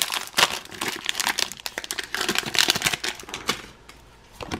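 Foil wrapper of a Pokémon booster pack crinkling as the cards are pulled out of it, a run of sharp crackles that dies away about three and a half seconds in.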